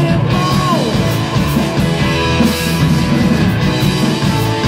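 Live rock band playing with electric guitars and drums, an instrumental stretch between sung lines with a steady beat; a held note slides down in the first second.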